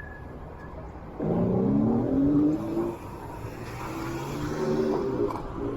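A motor vehicle accelerating close by, its engine pitch rising for about two seconds, then another engine note holding steadier, over a low traffic rumble.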